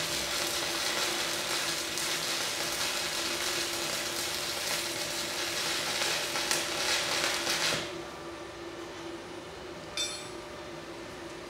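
Stick (MMA) welding arc from a Daesung MIG-120 SE inverter welder, burning a 2.6 mm electrode at 100 amps, crackling steadily for about eight seconds and then cutting off as the arc is broken. The welder judges this arc stable and smooth at that setting. A single short click follows a couple of seconds later.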